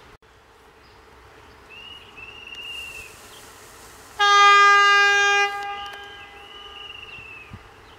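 Electric locomotive horn: one long steady blast, starting suddenly about halfway through and held for over a second before trailing away. Faint, short, high arching calls are heard before and after it.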